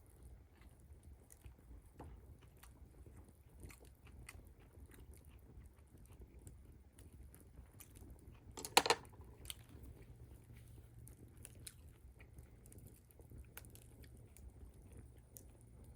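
Quiet eating sounds: chewing and small scattered clicks, with one louder, brief clatter about nine seconds in.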